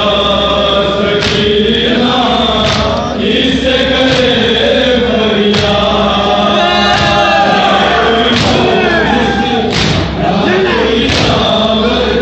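A crowd of men chanting a nauha (Shia lament) in unison, with loud group chest-beating (matam) strikes landing together about every one and a half seconds.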